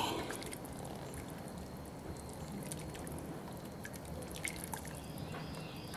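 Faint dripping and small splashes of water in a pot of hot water used to boil beeswax out of batik shirts, with scattered light ticks.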